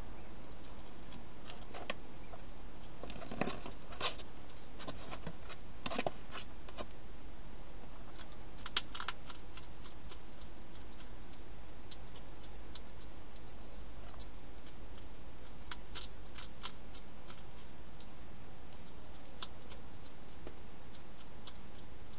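Wild hedgehog eating inside a clear plastic feeding box: irregular crunching clicks, bunched in the first ten seconds and sparser after. A steady low hum runs underneath.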